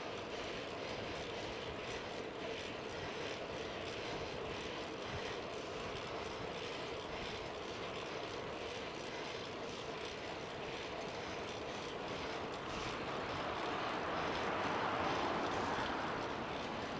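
Steady rush of wind and road noise from riding a bicycle at speed along a city street, with a louder swell near the end.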